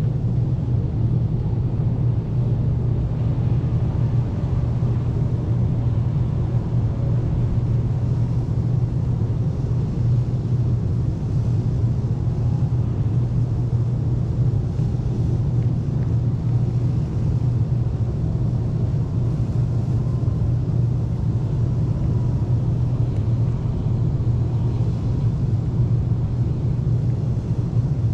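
Steady low outdoor rumble that holds unchanged throughout, with its weight in the low bass.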